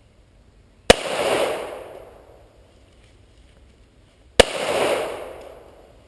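Two handgun shots about three and a half seconds apart, each followed by a long echo that rolls away over about a second and a half.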